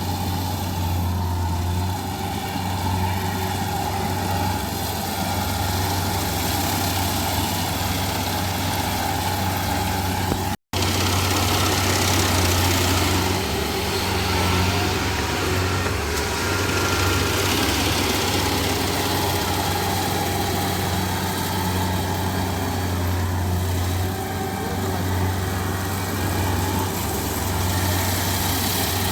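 Rice harvester's engine running steadily with a low, even hum. The sound drops out for a split second about ten seconds in.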